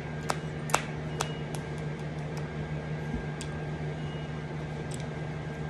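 Steady low mechanical hum with a faint steady high whine above it, and scattered sharp light clicks, most of them in the first second and a half.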